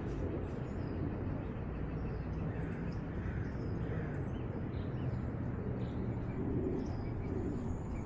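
Steady low rumbling noise on a collar-worn cat camera's microphone as the cat moves, with a low hum under it and faint, scattered bird chirps above.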